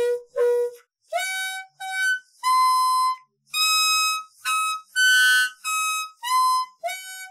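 Clarinet played with its bell blocked against the player's leg: about ten short separate notes that jump between pitches, a few scooping up into the note. The notes come out a little out of tune and weird.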